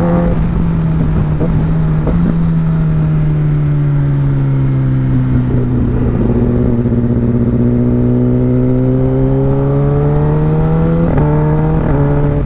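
Kawasaki ZX-10R inline-four engine pulling on the road: its pitch sags slowly, then climbs steadily. Near the end it drops in two quick steps as the quick-shifter makes clutchless upshifts.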